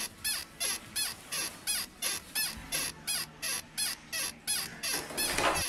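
A tipped-back wheelchair squeaks in a steady rhythm, about three short squeaks a second, each sliding in pitch. A low hum joins partway through.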